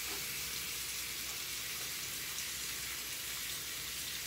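Turkey wing pieces sizzling steadily as they pan-fry in hot olive oil in a cast-iron skillet.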